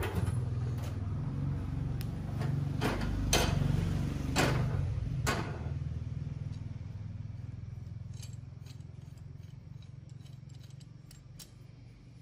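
Metal clicks and knocks from a homemade C-clamp, its frame cut from an old chain sprocket, as it is loosened and handled against a steel bar and steel tabletop. There are about five sharp clicks in the first five seconds, then a few faint ticks further on.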